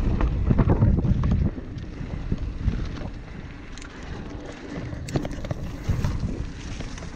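Mountain bike riding down a dirt trail: wind rumbling on the microphone over tyre noise and clattering of the bike. Loud for the first second and a half, then quieter with scattered clicks and knocks.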